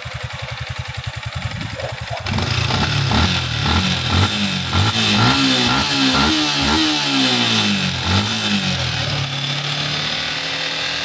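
Yamaha Sniper 155's single-cylinder engine idling with a fast, even putter, then revved repeatedly from about two seconds in, its pitch rising and falling several times before settling to a steady run near the end. The engine is being run with the cooling system freshly filled, warming up for the radiator fan to cut in.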